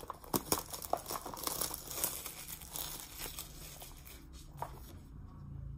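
Packaging on a small product box being torn and crinkled open by hand: a dense run of sharp rustles and crackles that thins out to a few scattered clicks over the last two seconds.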